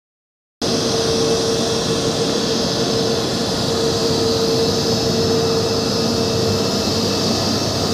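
Jet engines of a taxiing Airbus A320 airliner running at taxi power: a steady rushing noise with a steady droning tone. The sound starts abruptly about half a second in.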